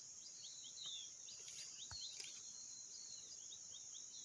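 Faint outdoor chorus: a steady high-pitched insect drone with many short, quick falling bird chirps over it. A single faint knock about two seconds in.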